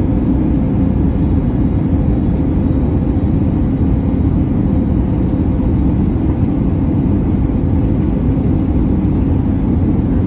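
Steady cabin noise inside an Airbus A321neo descending on approach: a continuous low rumble of the engines and airflow heard by the window over the wing, with a faint steady hum running through it.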